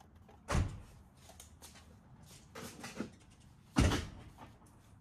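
Vintage toy train cars being handled and set down on a hard surface: two solid knocks about three seconds apart, the second the louder, with lighter clicks between.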